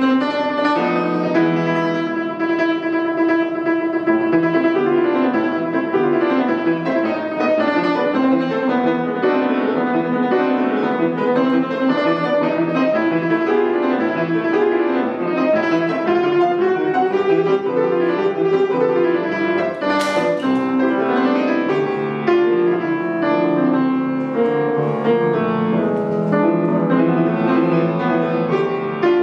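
Estonia grand piano played solo: a continuous passage of many notes in quick succession, both hands busy across the keyboard.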